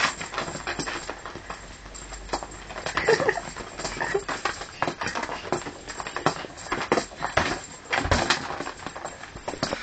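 Irregular knocks and thumps of a small child's feet stomping on the floor as she dances, with a few brief vocal sounds from her.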